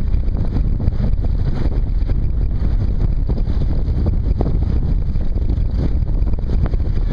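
Wind buffeting an outdoor microphone on the water: a loud, continuous low rumble that rises and falls in gusts.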